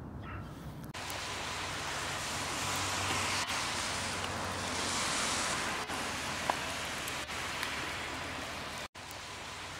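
A steady, even hiss of outdoor ambience starts about a second in and drops out for an instant near the end.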